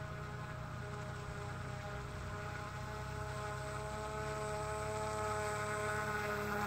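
Hand-made radio-controlled fan boat's motor and air propeller running, a steady droning hum that slowly grows louder as the boat comes closer.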